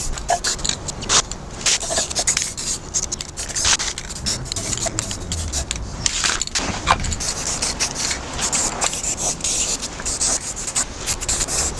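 Aerosol spray-paint can hissing in repeated short bursts, with wind rumbling on the microphone.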